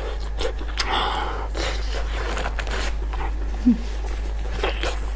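Gloved hands pull apart a sauce-coated piece of braised meat, making soft, sticky tearing and squishing sounds as a string of small clicks. Breathing runs through it, and there is a short low vocal sound a little past the middle.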